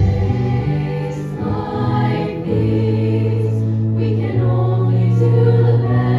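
A chorus of many voices singing a show tune together over an instrumental accompaniment with long held bass notes.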